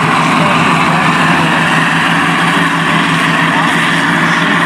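M24 Chaffee light tank driving past close by: its twin Cadillac V8 engines running steadily under the rapid clatter of its steel tracks.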